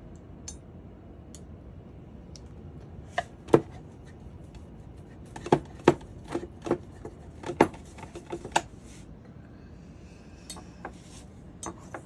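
Palette knife tapping and dabbing paint onto a birdhouse roof and against a plastic paint tray: about a dozen sharp taps in an uneven run from about three to nine seconds in, then a few lighter ones near the end.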